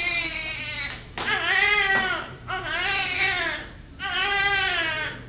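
Newborn baby crying: a run of about four long wails in a row, each broken by a quick breath.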